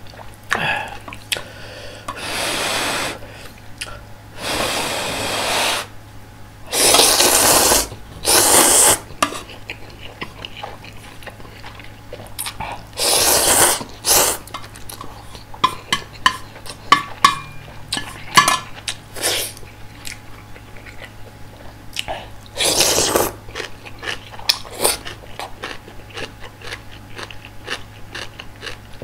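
Loud slurping of instant ramyeon noodles, about six long slurps in the first half, with wet chewing and mouth smacks between and after them.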